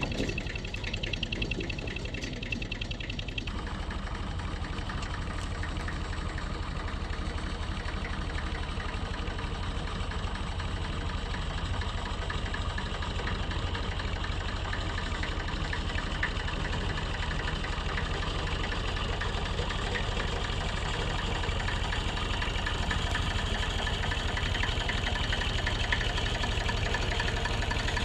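Background music ends about three seconds in, giving way to an excavator's diesel engine running steadily, getting slightly louder near the end.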